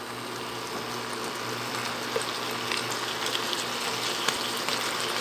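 Soy-marinated pork belly cubes frying in a pan: a steady sizzle with small crackles and pops as the sauce bubbles down and caramelizes.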